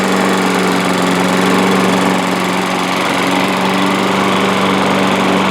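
Troy-Bilt lawn mower's Briggs & Stratton 125K02 single-cylinder engine running steadily at an even speed. Its carburetor has been cleaned and the bowl gasket replaced, and it keeps running without dying.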